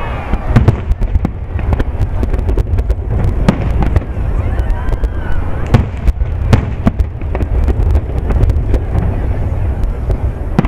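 Aerial fireworks shells bursting overhead: a long irregular string of sharp bangs and crackling pops, several close together at times.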